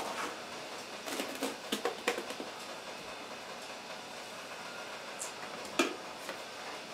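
Light knocks and scrapes of a measuring cup scooping sugar from a plastic bucket and handling it over a stainless steel pot, with a sharper click near the end, over a steady faint hum.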